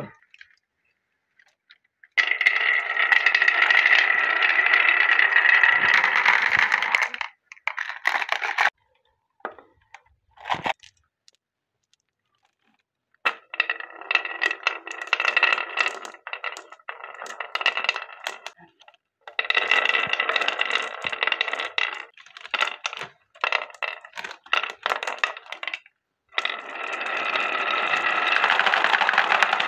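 Glass marbles rolling along the curving carved grooves of a wooden marble-run slope and clicking against one another. It comes in several long runs with short silent breaks between them.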